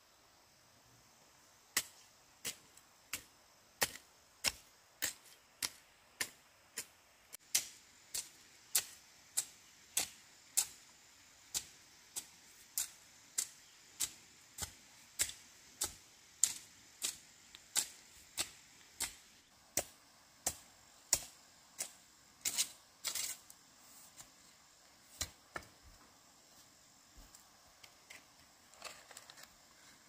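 A long series of sharp, evenly spaced knocks, about three every two seconds. They stop a little over twenty seconds in, followed by a few fainter, scattered ones.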